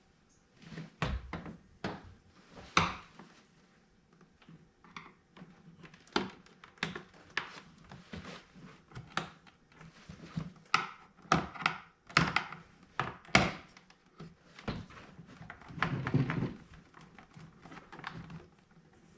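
Hands working at the wiring plug for the light in a Jeep door panel: an irregular string of sharp clicks and knocks, with a duller thump near the end.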